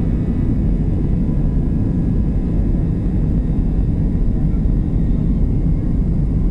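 Airbus A319 jet engines heard from inside the passenger cabin: a loud, steady low rumble with a faint high whine over it.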